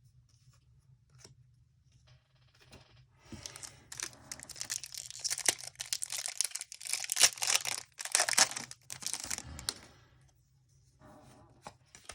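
Foil booster-pack wrapper of a Pokémon trading card pack being torn open and crinkled, a dense run of ripping and rustling from about three seconds in until about ten seconds in, loudest in the middle.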